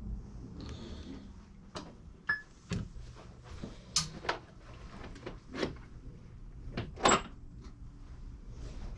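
Irregular knocks and clicks of parts being handled on a pinball machine cabinet, about ten over the stretch, the loudest about seven seconds in, over a low steady hum.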